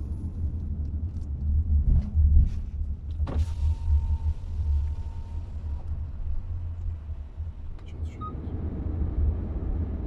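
Low, steady rumble of a car's engine and tyres heard inside the cabin as it rolls up to a toll booth and stops. A knock about three seconds in is followed by a steady tone lasting about two seconds, and a short beep sounds near the end.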